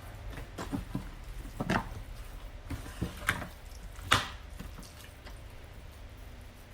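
Chicken leg pieces being worked by hand in a bowl of oily masala marinade: irregular soft knocks, clicks and wet squelches, the loudest a sharp knock about four seconds in.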